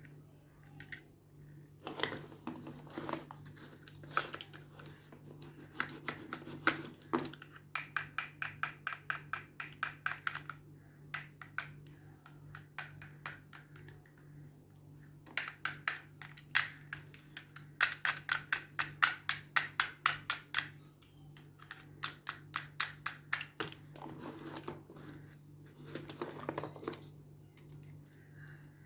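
Close-up handling of toy packaging during an unboxing: scattered crisp clicks and crinkles, with two long runs of rapid clicking, the second the longer and louder. A faint steady hum lies underneath.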